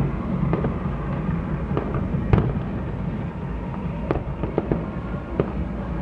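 Aerial fireworks display: a rapid run of shell bursts and crackling bangs over a continuous low rumble, the loudest bang about two seconds in.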